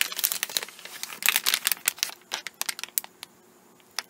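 Clear plastic bag crinkling as it is handled and the laptop battery is pulled out of it: rapid crackles that thin out after about three seconds, with a single click near the end.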